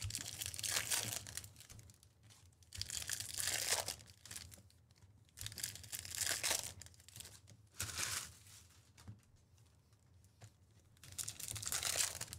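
Foil trading-card pack wrappers being torn open and crinkled, in about five short bursts a couple of seconds apart.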